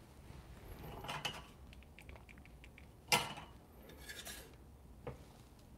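Faint clinks and scrapes of a small glass espresso cup being handled on a scale on the espresso machine's metal drip tray, with one sharper knock about three seconds in.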